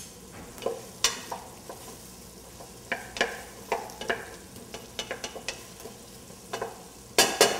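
Wooden spoon stirring butternut squash into onions sautéing in a stainless steel pot: irregular scrapes and taps of the spoon against the pot over a soft sizzle, with a louder flurry of knocks near the end.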